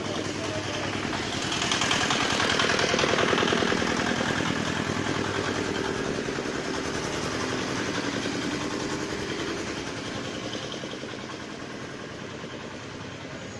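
Motor vehicle engines running in the street: a steady idle, with one engine growing louder about two seconds in and then gradually fading away.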